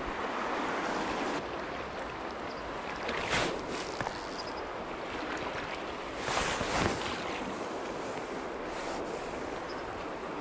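Small creek flowing steadily over a rocky bed, a constant rushing of water. Two brief louder swooshes rise over it, about three and six and a half seconds in.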